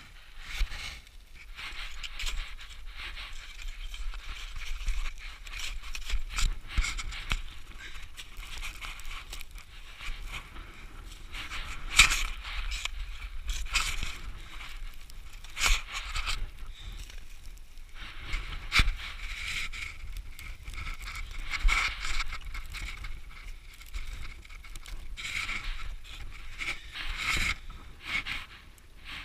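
Ice axe and crampons crunching and scraping into steep, firm snow during a climb, with sharp knocks every few seconds as the tools bite in.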